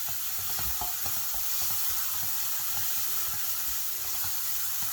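Carrot, cabbage, onion and ginger sizzling in sesame oil in a heavy pan as they are stirred, a steady frying hiss with scattered light knocks of the utensil against the pan.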